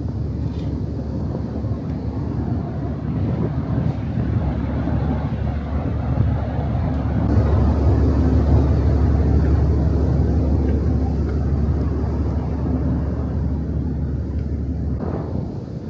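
Low, steady engine drone of a large ferry, a deep hum under a rumbling noise, swelling for a few seconds in the middle before easing back.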